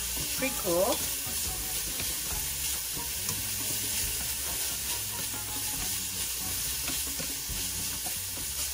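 Shredded chicken sizzling in oil in a stainless steel pan while it is stirred and tossed with wooden chopsticks: a steady frying hiss with light stirring noises as the chicken browns.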